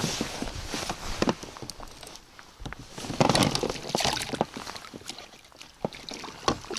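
Water splashing and sloshing at the side of an inflatable boat as a perch is landed in a landing net, with scattered light knocks and clicks. The loudest splashing comes about three seconds in.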